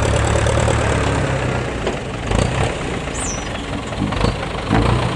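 Dump truck's diesel engine idling with a steady low rumble, with a few short knocks about halfway through and near the end.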